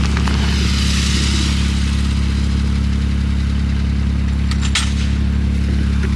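A vehicle engine idling steadily with a low, even drone. A brief hiss rises and fades about a second in.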